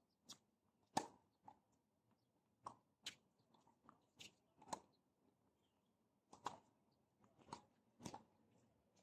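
Tennis ball struck by rackets and bouncing on a hard court during a rally: a string of sharp pops at irregular intervals, the loudest about a second in.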